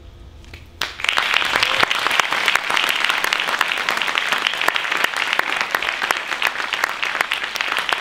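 Audience applauding, starting suddenly about a second in and keeping up steadily as dense clapping.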